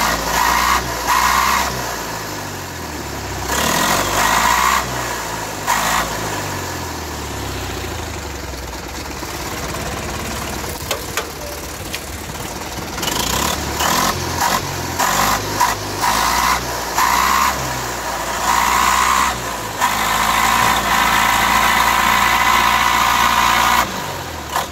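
TAF articulated forestry skidder's diesel engine revving up and down again and again under load, its pitch rising and falling, with a higher whine at each peak; a few short knocks come in the middle, and near the end the engine is held at high revs for several seconds.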